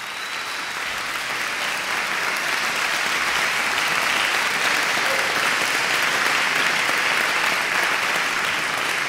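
Audience applauding: dense, even clapping that builds over the first few seconds and then holds steady.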